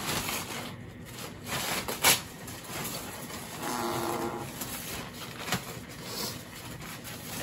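Tumbler turner's small motor running as it spins a tumbler on its pipe shaft. A short, steady pitched drone comes about halfway through, with a sharp click or two.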